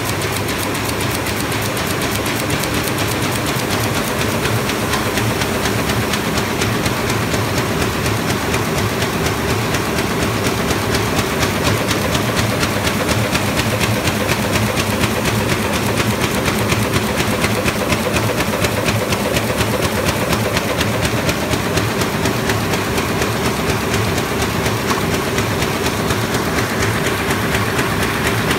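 MAN Roland 306 HOB six-colour perfecting sheetfed offset press running in production at 15,000 sheets an hour: a steady, loud mechanical clatter with a fast, even rhythm.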